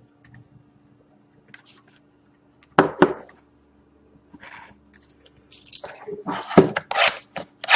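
Trading card boxes and their wrapping being handled. There are two sharp knocks about three seconds in, then crinkling and rustling of packaging that builds toward the end.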